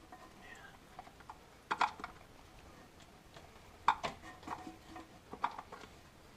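Scattered light clicks and knocks of toilet tank parts being handled and fitted during a fill-valve replacement, with three sharper clacks about two, four and five and a half seconds in.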